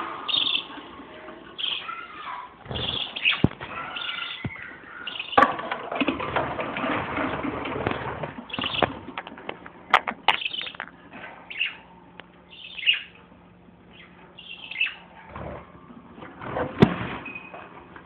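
Pet parakeets chirping and chattering in many short, high calls, with rustling and a few sharp clicks or knocks.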